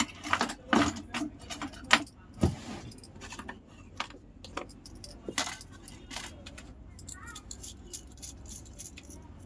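Rapid clicks and light clatter of small hard objects being handled, loudest and densest in the first two seconds, then sparser.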